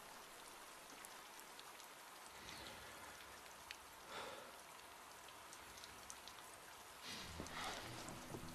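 Faint steady rain with scattered drip ticks, and low music coming in near the end.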